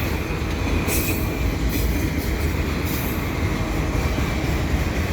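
Freight train of autorack cars rolling past close by: a steady rumble of wheels on rail, with a few brief high-pitched bursts from the wheels about one, two and three seconds in.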